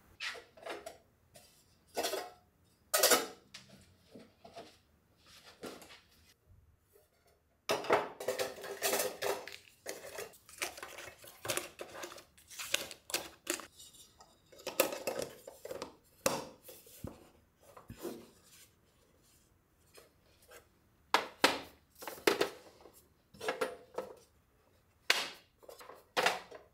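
Small metal tins with lids being handled: lids clacking on and off, tins set down on a hard surface, and wrapped tea sachets rustling as they are dropped in.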